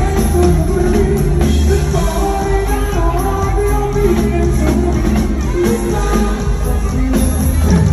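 Live band playing amplified through a stage PA, electric guitar and bass with a singer, with a heavy bass line.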